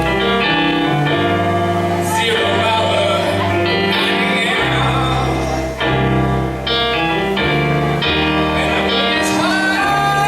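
Song with a male voice singing over a backing of held chords and a bass line that changes every second or so.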